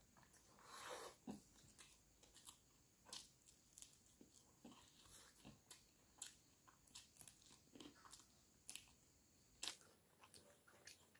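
Faint, close-up chewing and crunching of a mouthful of rice and food eaten by hand: irregular wet mouth clicks and small crunches, with a longer crunch about a second in.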